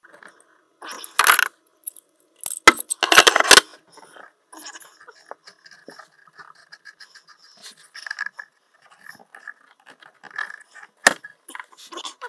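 Metallic clinks and clatter of hand tools and fittings being handled during plumbing work under a sink. The loudest clatters come in the first few seconds, with lighter ticking and rustling after, and one more sharp click near the end.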